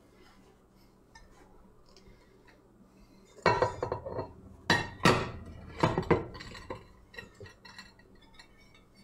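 Baking pans and plates clattering and clinking as they are handled and set down on a counter: quiet at first, then a flurry of ringing knocks from about three and a half seconds in to about seven seconds, then a few lighter clicks.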